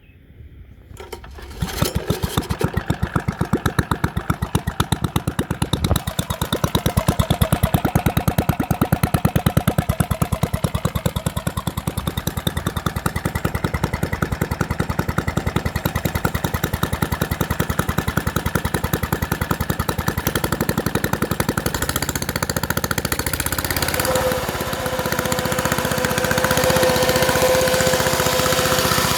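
Robin EY14 single-cylinder four-stroke engine of an old lawnmower starting up about two seconds in and settling into a fast, even run. This is the engine running again after years of standing seized. Near the end a steady whine rises over the running note.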